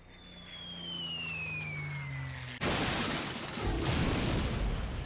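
Cartoon sound effects of the giant robot falling and crashing. First a falling whistle with a lower descending drone beneath it, then, about two and a half seconds in, a sudden loud crash of impact that rumbles on for a couple of seconds.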